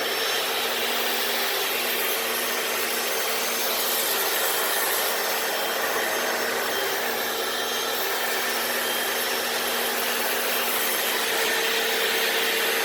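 Hoover FloorMate wet floor cleaner running steadily, its suction motor holding a constant hum while the spinning brushes scrub the wet garage concrete and the machine picks up the dirty water.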